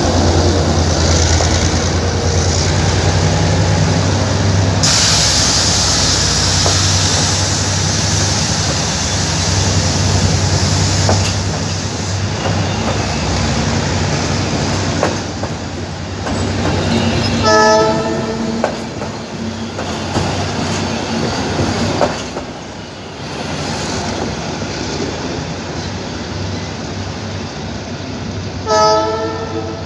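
Diesel-hauled passenger train passing close by: the locomotive's engine hum, then the coaches rolling past with steady wheel-on-rail noise. Two short train horn blasts, one about halfway through and one near the end.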